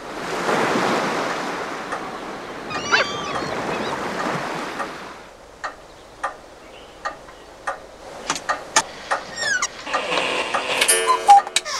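Cartoon sound effects: a clock ticking about once every two-thirds of a second; for the first five seconds a rushing surf-like noise with a few short gliding cries. Near the end a buzzing mechanical whirr as the cuckoo clock's little door opens.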